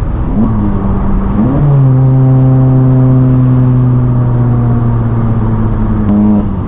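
A VW Mk7 GTI's turbocharged 2.0-litre four-cylinder, heard from inside the cabin, slowing down through the gears. The revs climb sharply about a second and a half in, as on a downshift, then hold a loud steady note whose pitch slowly sinks as the car slows on engine braking. Just after six seconds there is a click and another short rise in revs.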